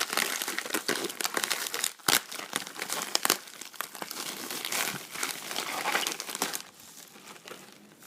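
Packaging being crinkled and unwrapped by hand while a mailed package is opened: a dense run of small crackles that dies down near the end.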